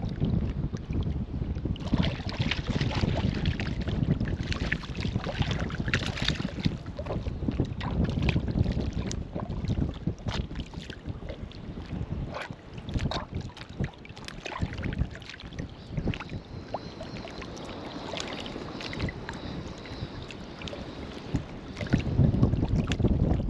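Wind buffeting the microphone over shallow water sloshing and splashing around a wading angler, with scattered small clicks and splashes as a hooked stingray is handled at the surface. The wind and water get louder near the end.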